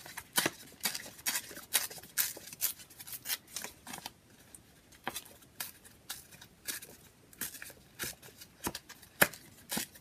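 A piece of feather-printed wallpaper handled, folded and creased by hand: a string of short, crisp paper crinkles and rustles, with a quieter spell partway through.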